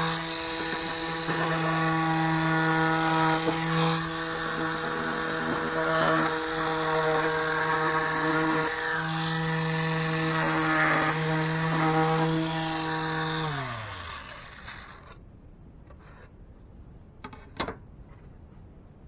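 Draper Storm Force belt and disc sander running while plywood is sanded on it, the rasp of the wood changing as the piece is worked. About 13 seconds in it is switched off and the motor winds down to a stop over a second or two. Two sharp knocks near the end.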